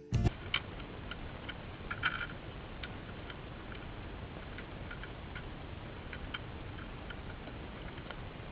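A few sharp knocks, then scattered light clicks and ticks over a steady hiss, from people on short skis stepping out over thin first ice and frozen reeds.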